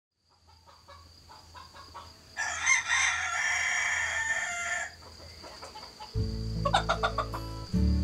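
A rooster crows once, a loud call lasting about two and a half seconds, after a few soft clucks. Acoustic guitar music comes in about six seconds in.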